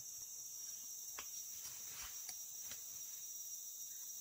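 Insects trilling steadily at a high pitch, with a few faint clicks or knocks about a second to three seconds in.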